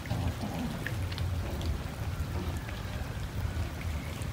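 A group of cats eating cooked rice: scattered small wet clicks and smacks of chewing over a steady low rumble.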